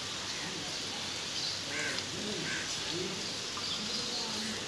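Steady hiss of monsoon rain, with crows giving several short caws over it.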